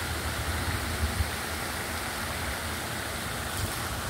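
Steady rushing outdoor noise, with wind rumbling unevenly on the phone's microphone and a small click about a second in.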